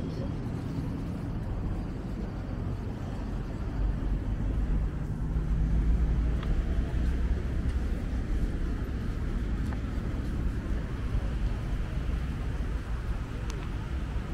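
Road traffic: cars running on the adjacent road, a low rumble that swells about four to six seconds in.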